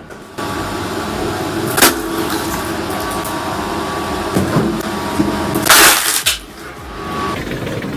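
A wood-processing machine running steadily, with two loud noisy bursts: a short one about two seconds in and a longer one near six seconds.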